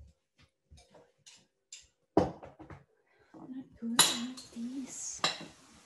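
Knife and tableware knocking and clinking on china plates while boiled potatoes are peeled and cut: scattered small clicks, a dull knock about two seconds in, and two sharp ringing clinks about four and five seconds in.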